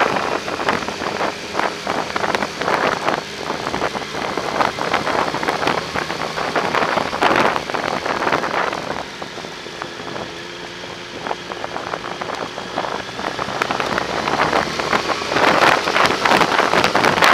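Wind buffeting the microphone of a moving Yamaha motorcycle, with the bike's engine running underneath. The wind eases about halfway through, letting a steady engine note come through, then builds again near the end.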